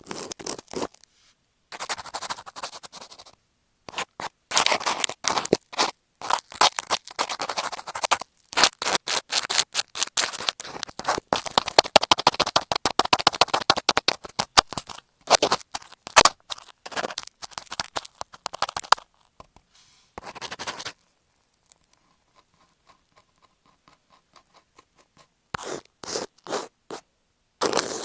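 Scratching and rubbing directly on the microphone of Apple EarPods covered with masking tape: rapid, dry, scratchy strokes in bursts, densest through the middle, pausing for a few seconds near the end before starting again.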